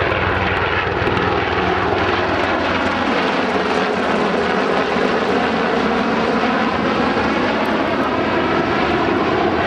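Military aircraft engines running loudly and steadily as an aircraft flies past, with a tone that falls in pitch over the first few seconds.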